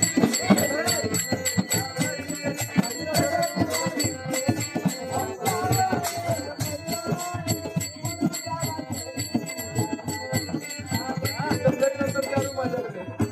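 Marathi folk song: a melodic line over a steady beat of drum and jingling, rattling percussion.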